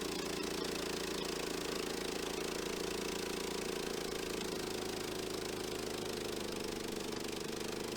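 The engine of an EZ Boardwalk Jr. portable bandsaw mill running steadily.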